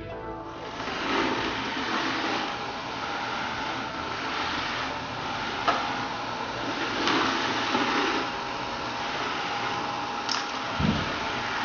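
Samsung Navibot VC-RM72VS robot vacuum running: a steady whir from its suction motor and brushes with a faint steady whine, about 54 dB on a sound meter. A few light clicks come through, and there is a low thump near the end.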